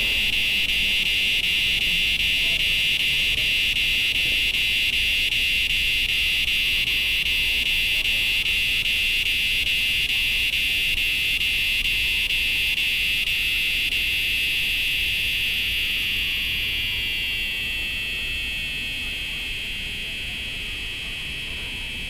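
Cicadas singing in the trees, a loud, steady, high-pitched buzzing chorus. Near the end it begins to fade and drops slightly in pitch.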